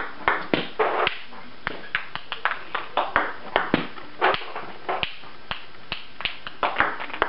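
Table tennis serves played one after another: an irregular run of sharp clicks, several a second, as the rubber paddle strikes the celluloid ball and the ball bounces on the table, each click ringing briefly.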